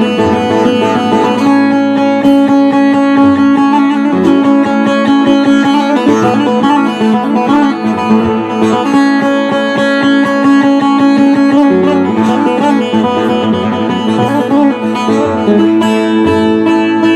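Bağlama (saz), a Turkish long-necked lute, played alone without singing: a plucked folk-tune melody over steady ringing drone notes.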